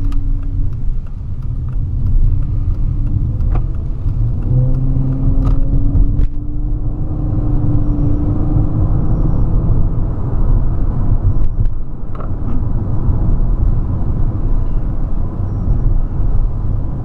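Dodge Challenger driving on a test run after a spark-plug change, with a steady low engine and road rumble. The engine's tone climbs slowly for a few seconds as the car gathers speed.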